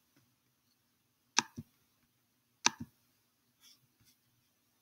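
Chromebook touchpad clicked twice, about a second and a half in and again just over a second later, each a sharp click followed closely by its softer release. Two fainter taps come near the end.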